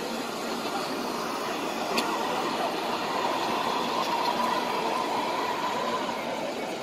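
Steady murmur of a huge crowd of pilgrims on the move, with one sharp click about two seconds in.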